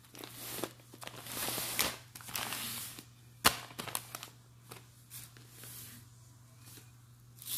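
Plastic bag of rice being handled and pressed flat: the plastic crinkles in uneven swells and the grains shift inside, with one sharp click about three and a half seconds in. A faint steady hum sits underneath.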